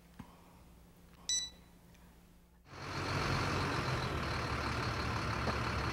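A short high ping about a second in, then a box delivery truck's engine running steadily: a low rumble with a faint high whine on top.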